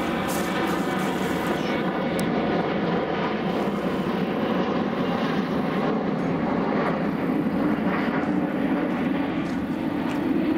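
Steady engine drone, with faint steady tones near the start that fade about two seconds in.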